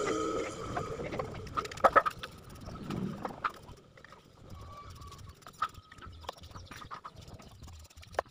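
A stiff, half-dry paintbrush scratching in short strokes over the rough cement surface of a relief pot. An engine hum fades out in the first second or so.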